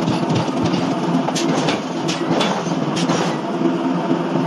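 Heavy forging machinery running with a steady low hum, with a cluster of sharp metal clanks in the middle as a red-hot steel block is handled on the forging die.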